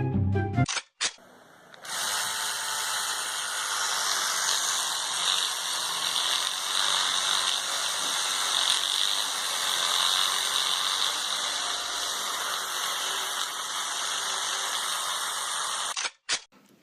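A steady mechanical noise starts about two seconds in, runs for about fourteen seconds and cuts off near the end.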